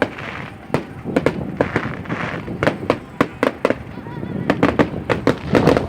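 Fireworks display: a rapid, irregular string of sharp bangs, with crackling hiss between them.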